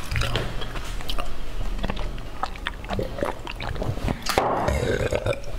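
Close-miked mouth sounds of sipping and swallowing tea from a glass, with many small wet clicks and smacks.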